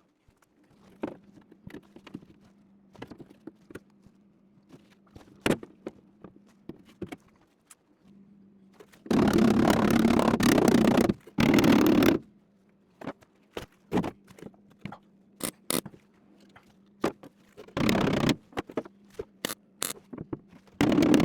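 MIG welder tacking a steel body panel: a crackling arc burst of about two seconds roughly nine seconds in, a second shorter one right after it, and brief tacks later on. Between the bursts there are light clicks and taps of handling, with a steady low hum underneath.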